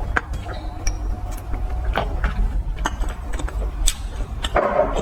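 Close-miked eating of fried skewers: sharp crunches and mouth clicks while chewing, spaced irregularly, with a longer crackly crunch near the end.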